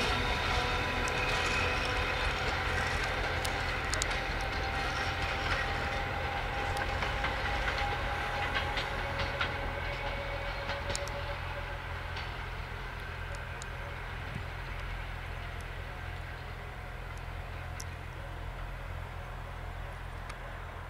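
Passenger train coaches rolling away over station trackwork, the wheels clicking over rail joints and points while a thin wheel squeal sags slightly in pitch. The whole sound fades steadily as the train recedes.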